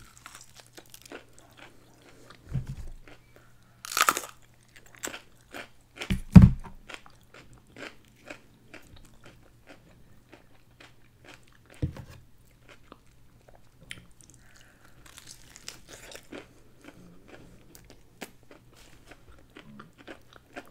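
Crunching bites into a crispy fried chicken wing, then chewing: loud crunches about four and six seconds in and another near the middle, with a steady run of smaller crackles from the crisp coating.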